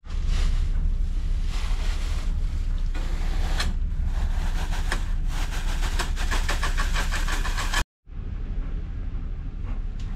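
Steady low drone of a ferry's engines heard inside the cabin, with close rustling and a run of rapid clicks over it; the sound drops out for a moment about eight seconds in.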